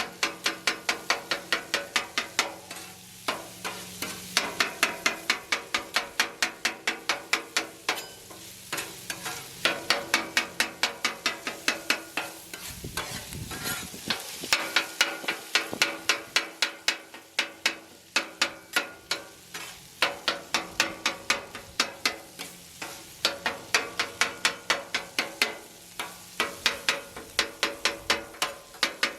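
Metal spatulas chopping hot dogs on a Blackstone steel griddle top: quick clacking strikes of metal on metal, about five a second, in runs with short pauses, over the sizzle of the meat frying.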